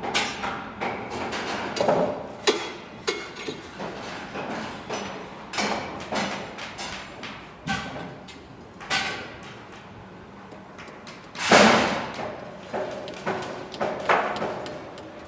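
Construction site sounds: irregular hammering and knocking, uneven in spacing and loudness, with one louder, longer clattering bang about two-thirds of the way through.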